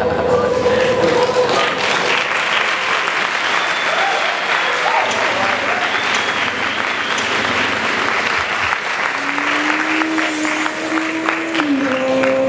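Music stops about a second and a half in, then an audience applauds steadily, with a few voices among the clapping.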